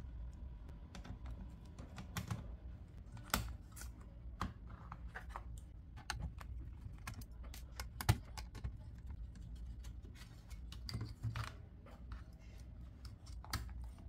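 Irregular plastic and metal clicks and taps from handling an open laptop's internal parts, as the battery and then the 2.5-inch SATA hard drive are lifted out. The sharpest click comes about eight seconds in.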